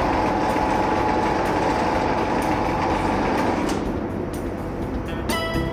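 Vehicle engine running steadily with a faint whine, easing off near the end, when bright children's music notes come in.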